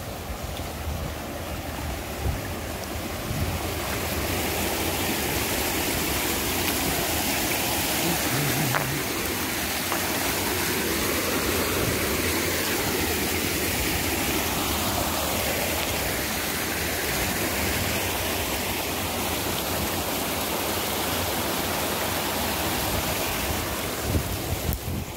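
Small shallow stream running over stones, a steady rushing of water, running a little high after overnight rain.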